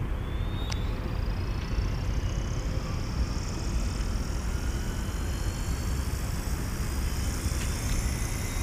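FW450 H1 electric RC helicopter's brushless motor and rotor spooling up on the ground: a whine that rises in pitch over the first few seconds, then holds steady, under a low rumble of wind on the microphone.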